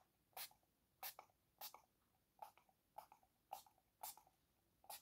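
Perfume bottle's atomizer pumped over and over: about eight short spritzes of spray, one every half second to second.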